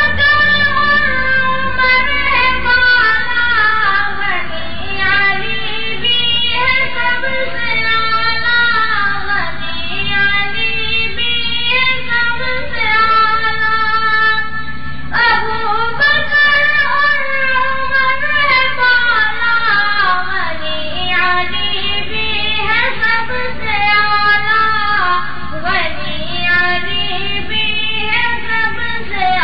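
A high voice singing a naat, an Urdu devotional song in praise of the Prophet, in long held notes that bend and glide, over a steady low drone.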